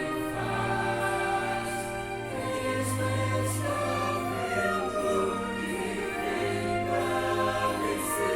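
A choir singing a hymn in Portuguese, with sustained chords over held bass notes.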